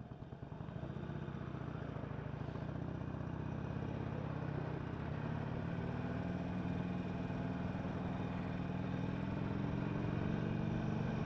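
Harley-Davidson Sportster 1200 Custom's carbureted V-twin engine running under way. It builds in the first second, then pulls steadily as its pitch slowly rises.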